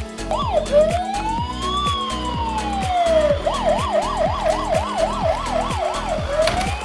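Electronic emergency-vehicle siren for a toy police car or ambulance: one slow wail rising and falling, then a fast yelp of about three sweeps a second, then the slow wail starting again near the end. A repeating low beat runs underneath.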